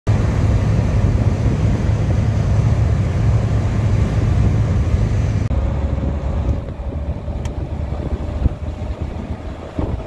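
Road and wind noise of a moving car heard from inside, a dense low rumble with air buffeting the microphone. About five and a half seconds in it drops abruptly and carries on quieter, with a faint steady hum and a single sharp click.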